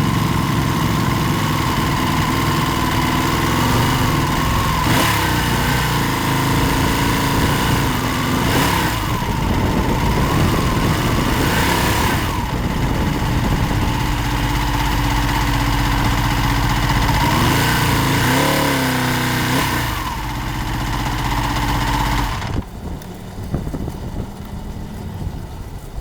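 Racing motorcycle engine running with its pitch rising and falling gently, under heavy wind and road noise. About 22 seconds in, the sound drops sharply to a much quieter level.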